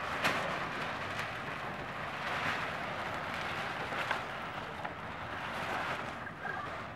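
Steady rushing of wind and water aboard a sailing catamaran under way, with a few sharp clicks, one just after the start and another about four seconds in.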